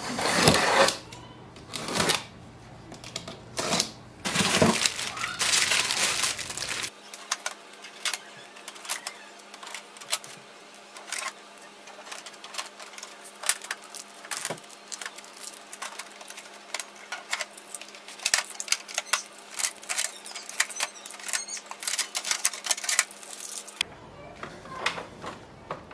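Unboxing handling noise. In the first few seconds a utility knife slices the packing tape on a cardboard box, with loud scraping and rustling bursts. After that comes a long run of small quick clicks and crackles as blue shipping tape is peeled off the printer's plastic body.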